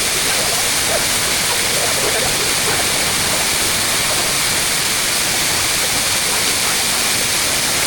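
Waterfall pouring down close by, a steady, dense rush of falling water with no let-up.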